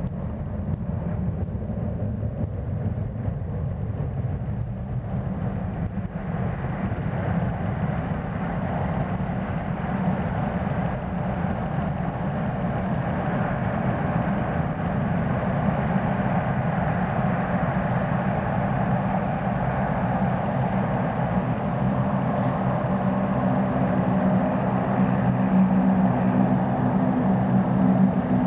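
Jet airliner engines running, a steady low rumble with a rushing hiss that grows gradually louder.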